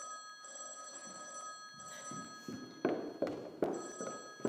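A telephone bell ringing, a bright ring of several steady tones that runs for nearly three seconds, stops, and starts again about a second later. Three loud thuds come in quick succession in the gap.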